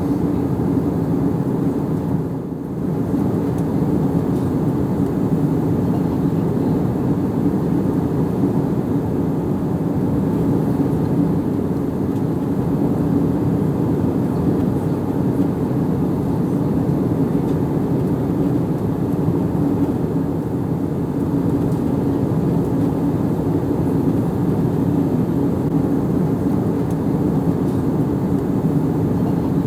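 Airplane cabin noise: a steady low rumble with a constant hum. It dips briefly about two and a half seconds in.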